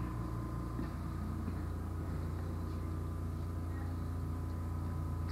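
A steady low electrical-sounding hum with a thin high whine over it, and only faint small handling noises.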